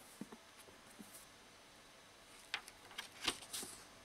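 Old paperback book being handled and opened: a couple of faint soft knocks in the first second, then a cluster of crisp paper rustles and snaps from the cover and pages from about two and a half seconds in.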